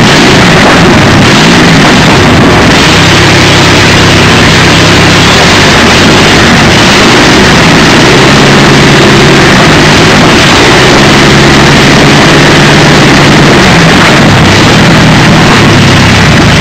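Napier-Bentley's 24-litre W12 Napier Lion aero engine running loudly and steadily with the car standing still, rougher and less even for the first few seconds before settling into a steady beat.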